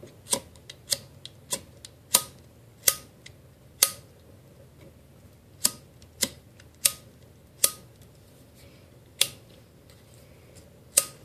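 Spark wheel of a burnt-out Bic lighter with its metal hood removed, thumbed again and again against the flint to throw sparks into cotton-ball tinder: about fifteen sharp clicks, quick in the first two seconds and farther apart after.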